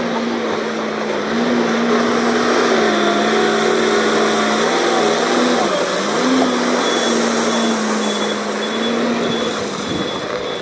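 Tata Hitachi TL340 wheel loader's diesel engine running hard as the loader works into a crushed-stone pile; the engine note sags about six seconds in as the bucket digs in, then picks up again. Faint high beeping, about two a second, in the second half.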